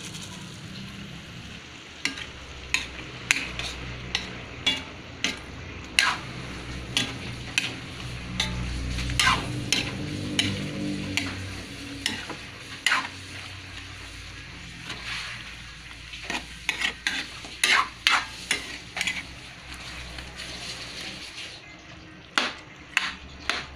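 Chicken pieces being stirred in a metal wok, the spatula scraping and clicking against the pan at irregular intervals over a steady sizzle.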